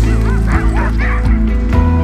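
Sled huskies yelping in a quick series of high, rising-and-falling cries over background music; the cries stop about a second in.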